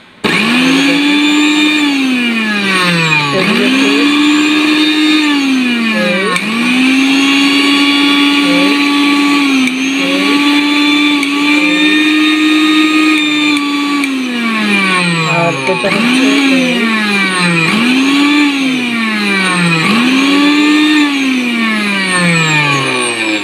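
Vision 1100-watt blender motor run in short pulses on its push button: each time the whine climbs quickly to full speed, holds, then drops as the button is let go, six runs in all, the third lasting about nine seconds. The speeds are never allowed to die away fully before the next press.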